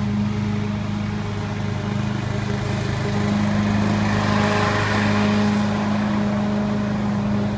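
Briggs & Stratton 850 I/C single-cylinder four-stroke engine on a Greenfield rotary lawn mower, running at a steady speed while cutting grass. It gets louder, with more blade and grass noise, from about four to five and a half seconds in as the mower passes close by.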